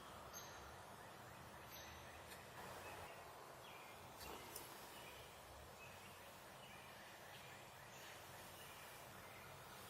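Faint gobbling of a wild turkey tom over a quiet outdoor background.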